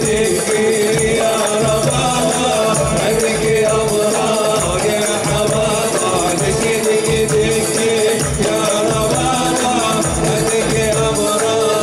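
Live Gulf Arabic samrah folk music: a male voice singing a wavering melody over frame drums and hand drums, with a stringed instrument.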